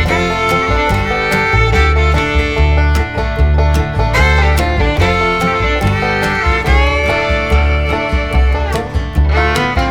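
Background bluegrass-style music with fiddle over a steady driving beat.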